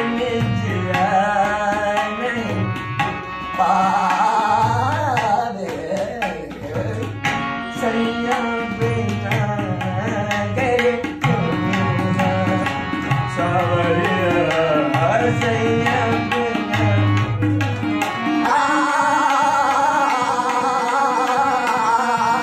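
A man's voice singing a thumri over a harmonium's held reed tones, with a tabla keeping a steady beat of low strokes.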